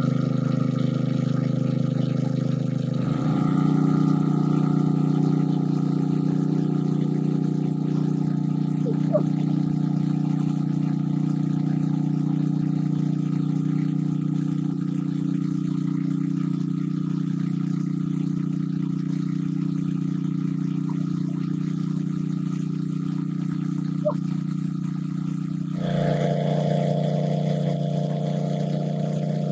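An engine running steadily at a constant speed. Its tone shifts abruptly about three seconds in and again near the end.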